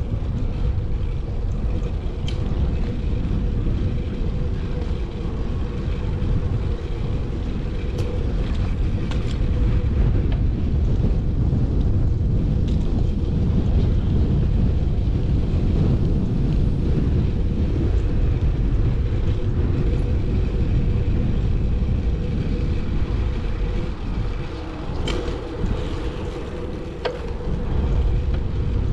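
Wind buffeting a chest-mounted GoPro's microphone while riding a road bike: a steady low rumble, with a few sharp clicks scattered through it.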